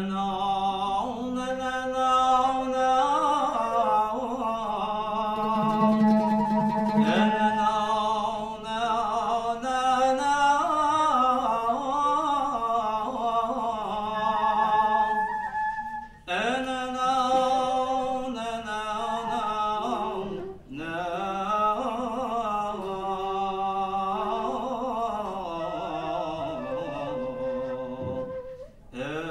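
A solo male voice singing a long, unmetered, ornamented melody in Moroccan Sufi sama' style, gliding and bending between held notes. It breaks off twice for breath, about halfway through and again a few seconds later.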